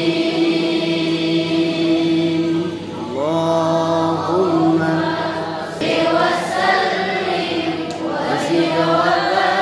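Quran students and their teacher chanting together in unison in maqam Nahawand, closing the recitation. They hold long notes, and three ornamented phrases climb upward, about 3, 6 and 9 seconds in.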